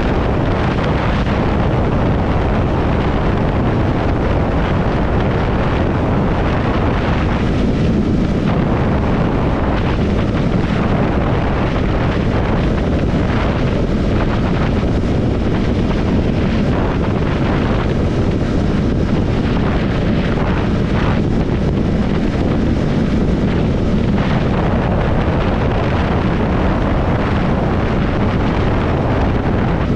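Triumph Scrambler 400 X's single-cylinder engine running steadily at road speed, with wind rushing over the microphone.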